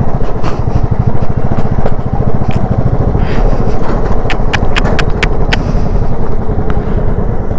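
Motorcycle engine running with a fast, even low pulsing as the bike rides over a broken, potholed road. A quick run of sharp clicks and rattles comes about four to five and a half seconds in.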